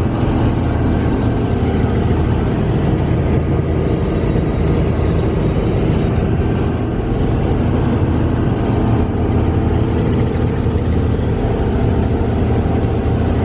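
Helicopter running steadily in flight, a constant drone of engine and rotor with a low hum.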